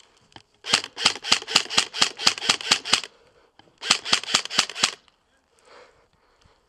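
Airsoft gun firing quick single shots, about five a second: a run of about a dozen sharp cracks, a short pause, then about six more.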